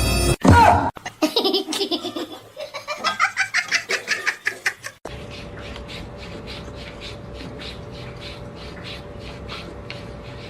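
Hearty laughter in quick repeated bursts for about four seconds. Then comes a steady low hum with soft regular ticks, about three a second.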